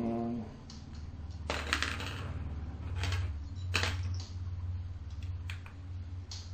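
Drawing tools (colored pencils, a magnifying glass) being handled on a desk: a few small clinks, clicks and scrapes, the loudest about one and a half and four seconds in, over a steady low hum. A short pitched squeak right at the start.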